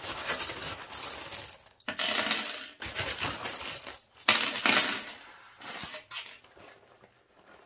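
Small metal charms jingling and clinking as they are rummaged in a fabric pouch and tipped out onto a table, in several clattering bursts, the loudest about two seconds and four and a half seconds in, then a few last clinks as they settle.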